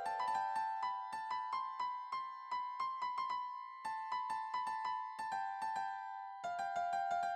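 Background music: a light, bouncy tune of quick piano-like notes, several a second.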